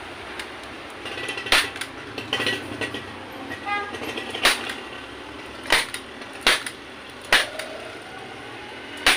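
Manual staple gun firing staples through a vinyl seat cover into a plastic motorcycle seat base: six sharp snaps at irregular intervals, with handling noise of the vinyl between them.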